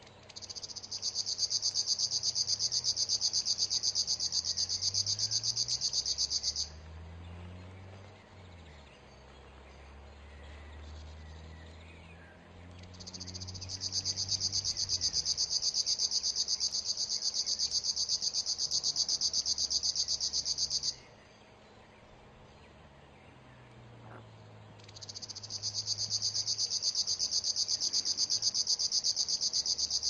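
River warbler singing its insect-like reeling song: three long bouts of fast, even, high-pitched buzzing, each six to eight seconds long, with pauses of a few seconds between them.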